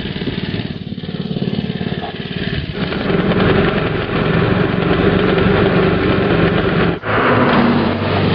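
Small pull-start gasoline motor of a home-built enclosed trike running as it drives, getting louder about three seconds in. It breaks off abruptly for a moment about seven seconds in and runs on again.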